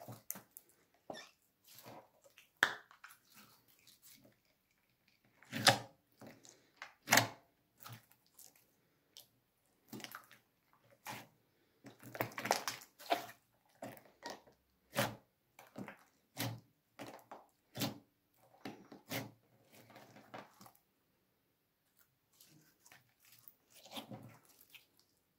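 Clear glitter slime being squeezed and kneaded by hand: irregular wet squelches and sharp popping clicks of trapped air. The loudest pops come about six and seven seconds in.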